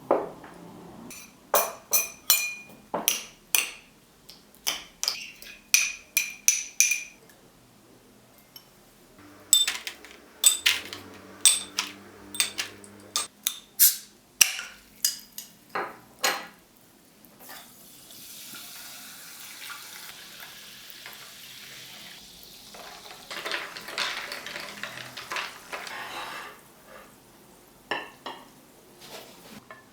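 Kitchenware clinking: a metal utensil knocks and taps against dishes or a pot in quick runs of sharp ringing clinks. Later comes a steady hiss lasting several seconds, then a few more clinks near the end.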